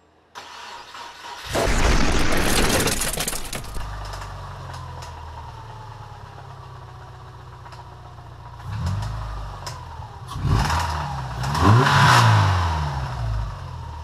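Subaru Forester's EJ25 flat-four engine cranked and catching about a second and a half in, flaring up, then settling to a steady idle. It is then revved twice, briefly and then for longer near the end, each rev rising and falling in pitch.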